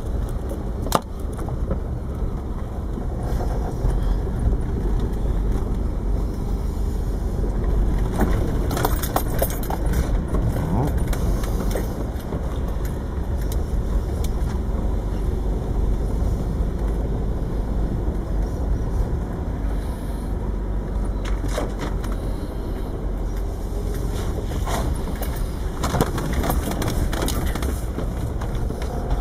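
Mercedes G-Class running in second gear along a rutted dirt track, a steady low engine and drivetrain rumble heard from inside the cabin. Scattered knocks and rattles come through as it rides over the bumps.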